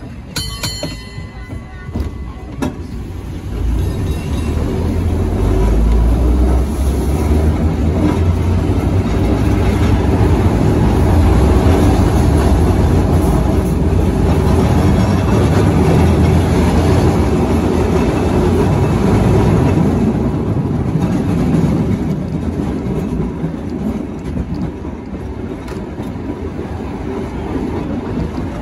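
1896 Hammond streetcar heard from aboard, rolling along the rails: wheel and motor rumble builds from about four seconds in as it gathers speed, then eases off after about twenty seconds.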